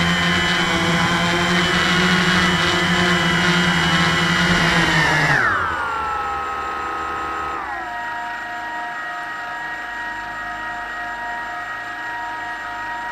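Small quadcopter's electric motors and propellers whining steadily, then falling sharply in pitch about five seconds in as the motors slow, stepping down once more a couple of seconds later and holding at a lower, quieter whine. The pitch starts to rise again at the very end as the motors speed up.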